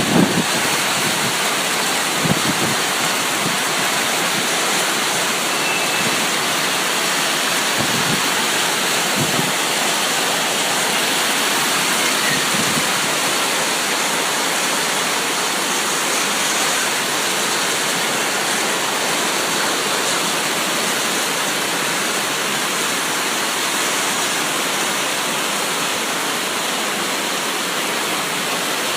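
Steady heavy rain, an even, unbroken hiss, with a few faint low thuds in the first half.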